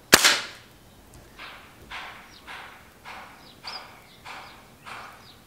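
A single shot from an air rifle, one sharp crack right at the start with a brief tail, firing a 15.89-grain 5.5 mm pellet at about 490 feet per second through a muzzle-mounted chronograph. After it comes a run of soft, evenly spaced scuffs, about one every half second or so.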